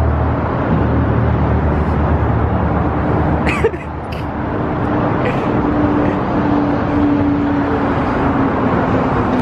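Outdoor city traffic noise: a steady rush of road vehicles. A heavy low rumble eases off about two to three seconds in, and a steady humming tone comes in about three seconds in and holds.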